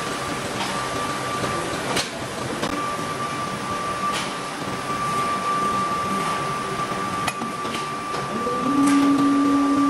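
Steel mill machinery noise: a steady mechanical din with a high, steady whine, broken by a few sharp metallic knocks. A lower hum comes in near the end.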